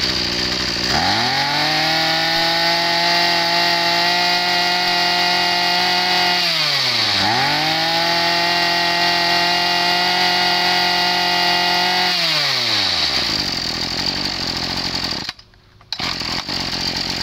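Tanaka 23cc two-stroke brush cutter engine idling, then revved up and held at high speed for about five seconds. It drops back to idle for a moment, revs up again for another five seconds, settles back to idle and cuts out near the end.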